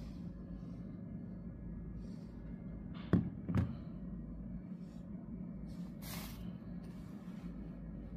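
Two light knocks about half a second apart as a smartphone is set back down on a table, followed a few seconds later by a brief brushing noise of a hand on the surface, all over a steady low room hum.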